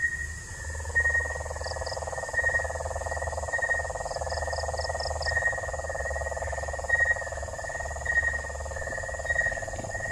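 Night chorus of frogs and insects. A continuous trill sets in about half a second in, under a high chirp that repeats a little under twice a second.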